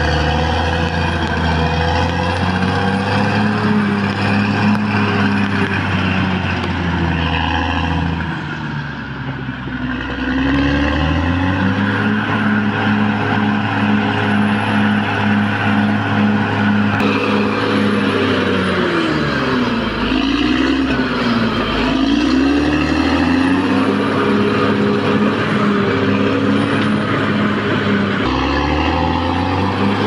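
Caterpillar D6R XL crawler bulldozer's diesel engine running hard and steady as it works. The sound dips briefly about eight seconds in, and a little past the middle the engine speed sags and comes back up twice.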